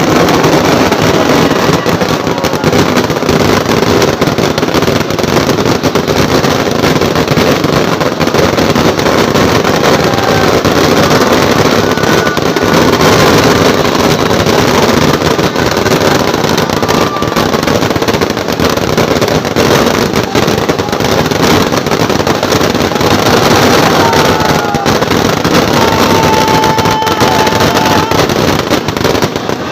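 A dense, continuous crackling barrage of fireworks and firecrackers going off together, loud and unbroken, with a few faint whistling tones in the second half.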